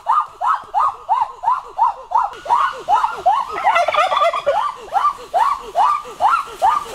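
Domestic turkeys calling: short calls that rise and fall in pitch, repeated about three times a second. From about two and a half seconds in, several birds call over one another.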